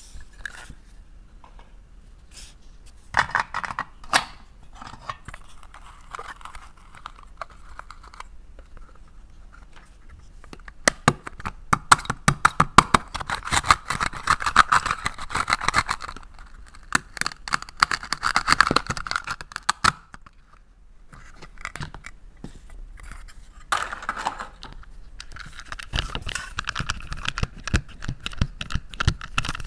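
Plastic toys being handled: sharp clicks and knocks of plastic pieces against a metal muffin tin and a plastic plate, with stretches of rasping, tearing scrapes in the middle as a plastic toy knife cuts through a toy tomato.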